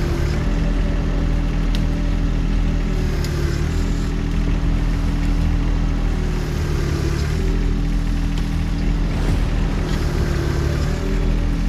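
John Deere 1025R sub-compact tractor's three-cylinder diesel engine running steadily under load as it pulls a downed tree. Its pitch shifts slightly a few times.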